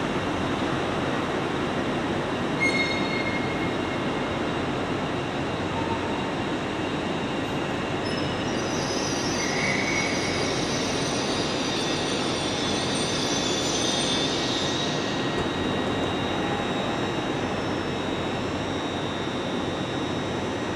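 LNER Azuma passenger train moving along the platform with a steady rumble; from about eight seconds in a high wheel squeal sets in and fades away at about fifteen seconds.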